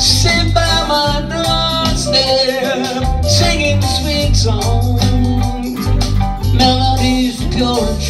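Reggae song performed live: a man singing with an acoustic guitar strummed steadily.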